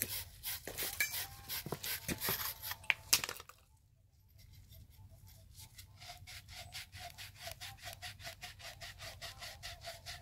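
Copper pipe being scrubbed clean by hand with abrasive cloth to prepare it for sweating with flux and solder. The strokes are uneven at first, stop briefly about three and a half seconds in, then turn into rapid, even back-and-forth strokes several times a second.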